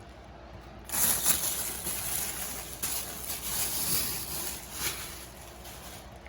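Packing material rustling and crinkling as it is handled, from about a second in until near the end.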